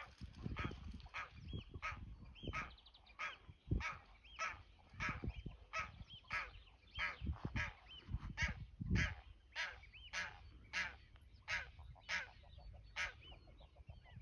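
Geese honking repeatedly, a run of short sharp calls about one to two a second, with a low rumble underneath.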